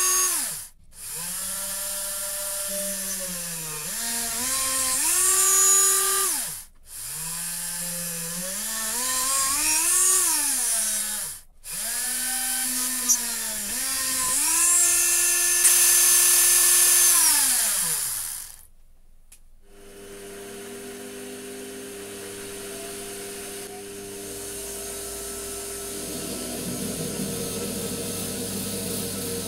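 Small electric drill spinning up, running and spinning down four times in a row while drilling equally spaced holes in a brass ring, its pitch rising at each start and falling away at each stop. After about two-thirds of the way, a quieter steady hum with held tones takes over.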